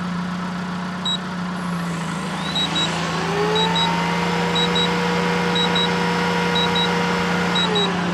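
A Hoover vacuum cleaner run off a pure sine inverter spins up about two and a half seconds in, runs steadily, then winds down near the end as the inverter's overload protection cuts its output. A high double beep sounds about once a second while it runs, over the steady low hum of a car engine idling to supply the inverter through its alternator.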